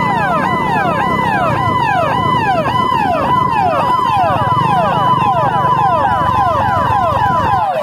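Several police vehicle sirens sounding at once, each a fast repeating rise-and-fall yelp, overlapping out of step with one another, over low engine noise.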